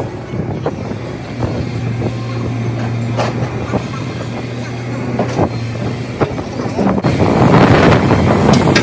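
Hitachi ZX120 excavator's diesel engine running with a steady low hum and a few sharp knocks, growing louder about seven seconds in.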